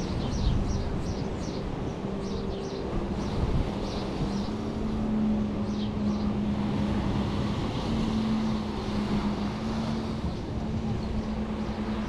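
A motor engine running steadily with a low hum that steps up slightly in pitch about four seconds in, over wind and surf noise. A bird chirps repeatedly during the first half.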